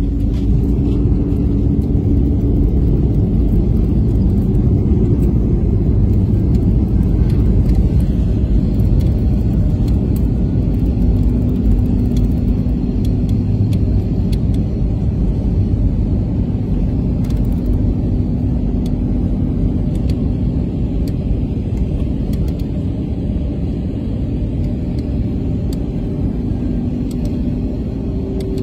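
Cabin noise of an Airbus A320-family jet rolling out on the runway just after touchdown: a loud, steady rumble of engines and wheels with a faint humming tone, slowly easing as the aircraft slows.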